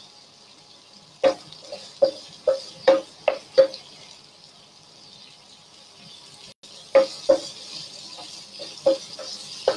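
Cooking utensil knocking against a pan while stirring food in sauce: a run of short taps in the first few seconds and another from about seven seconds in. Beneath them is a hiss of food cooking in the pan that grows louder near the end.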